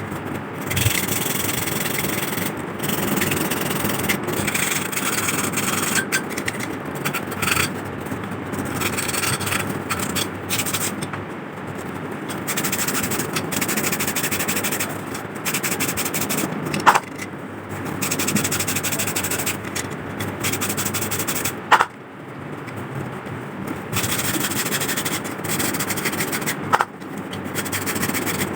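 Rusty metal lamp part being rubbed by hand with emery paper to take off rust: a continuous, uneven scratchy rubbing, with three sharp clicks spread through it.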